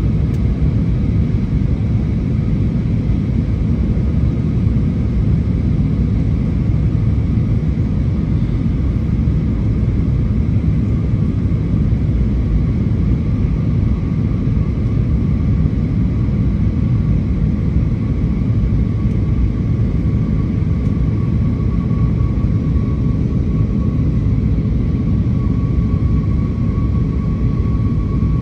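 Steady cabin noise of a jet airliner on its landing approach: engine and airflow rumble heard through the fuselage, with a thin steady whine that grows stronger over the last several seconds.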